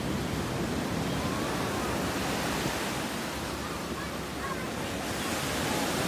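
Black Sea surf washing onto a sand beach, a continuous rushing noise that swells a little near the end.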